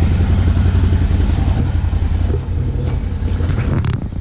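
Can-Am Defender XMR side-by-side's HD10 V-twin engine idling, a steady low rumble.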